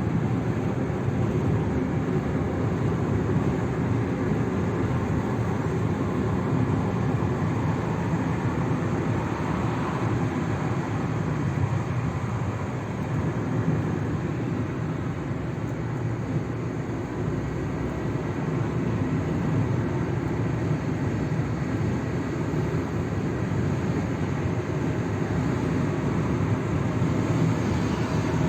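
Steady low mechanical rumble of a running vehicle, even throughout with no clear changes.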